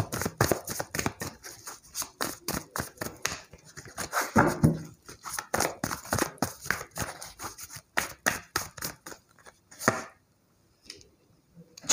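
Tarot cards being shuffled by hand: a rapid run of crisp card snaps and flicks, several a second. They stop about ten seconds in.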